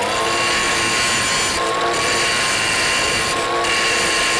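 Cordless 4-inch angle grinder with an abrasive disc running at full speed with a steady high whine, grinding the burred cut end of a threaded rod flat. The grinding hiss drops out briefly twice as the disc comes off the metal.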